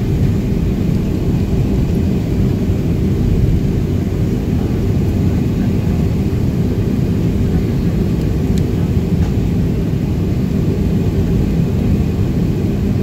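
Steady low rumble of an airliner's jet engines and cabin noise heard from inside the cabin while the plane taxis onto the runway.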